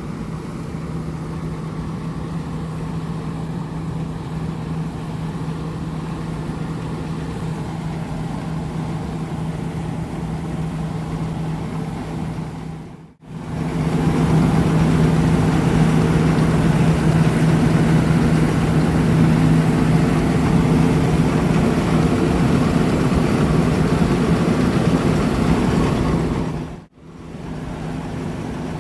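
John Deere S780 combine harvester running at work: a steady engine and machinery drone with a strong low hum. It drops out briefly twice, and the middle stretch is louder.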